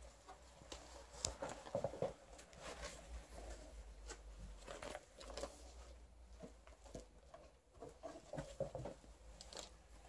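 Faint rustling and crinkling of a cardboard box and its packing being handled, with scattered light taps and clicks as a dog harness is lifted out and turned over.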